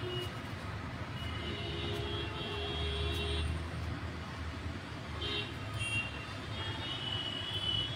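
Steady low background rumble, with a few brief thin high tones sounding over it now and then.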